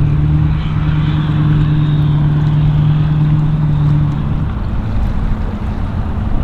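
A steady low motor hum that cuts off about four and a half seconds in, over a constant low wind rumble on the microphone.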